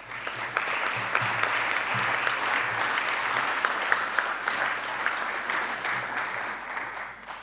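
Audience applause: a steady round of hand clapping that fades out near the end.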